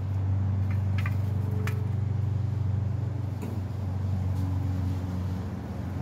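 A few sharp metallic clicks as a small metal tin is opened and denim char cloth is taken out of it, over a steady low motor hum.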